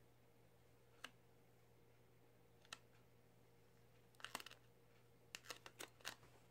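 Near silence with a steady faint hum. Over it come a few faint clicks and small crackles as fingers rub and lift clear transfer tape over vinyl lettering on the metal casket: single clicks twice, then small clusters in the last two seconds or so.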